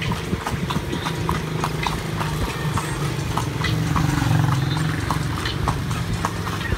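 Horse-drawn carriage (kalesa) on a paved street: the horse's hooves clip-clop at a steady pace of about three strikes a second over a continuous low rumble.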